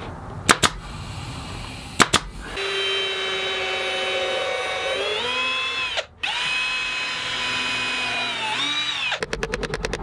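A 23-gauge pneumatic pin nailer firing twice in two quick pairs. Then a cordless drill runs steadily, its pitch sagging as it loads up, stopping briefly and running again. Near the end there is a quick run of hammer taps.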